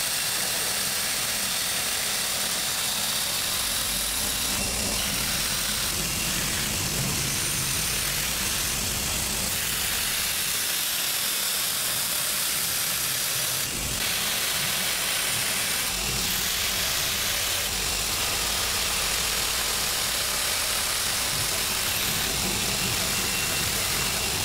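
Steel sword-handle plate being ground on a spinning grinding wheel, shaping it to a marked outline: a steady grinding noise over the running motor.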